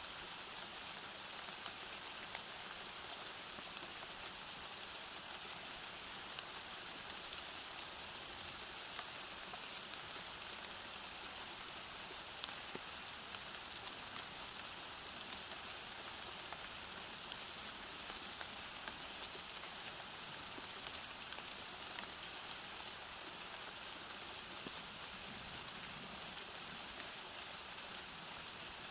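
Steady rain falling, an even hiss with scattered single drop ticks.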